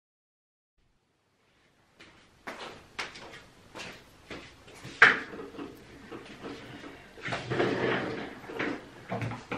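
Silence, then after about two seconds a string of knocks, clicks and rustling as a person moves about and sits down in a chair. The loudest is a sharp knock about five seconds in.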